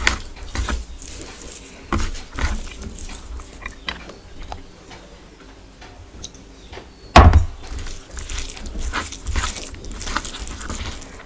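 Close-miked eating sounds: chewing and wet mouth noises with many small clicks, plus a few knocks, the loudest about seven seconds in.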